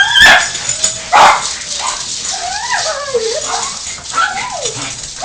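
Excited dogs greeting their owner: two sharp barks in the first second and a half, then long whines that slide up and down in pitch.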